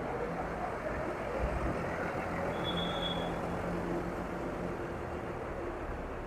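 Diesel engine of an intercity coach bus running steadily as the bus pulls away, a low hum. A brief high-pitched squeal is heard about three seconds in.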